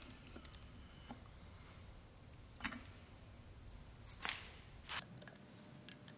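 A few light metal clinks and knocks from FD Mazda RX-7 transmission parts being handled and lifted off the shaft, the loudest about four seconds in.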